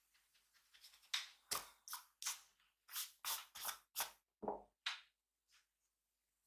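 A quick series of about a dozen scratchy strokes of a drawing tool on paper, two to three a second, stopping about five and a half seconds in.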